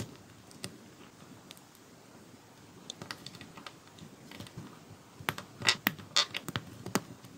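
Small hard plastic clicks and taps of LEGO pieces being handled and fitted together: a minifigure's parts, then a bicycle frame and wheel. The clicks are sparse at first, then come in a quicker run of louder clicks over the last two seconds or so.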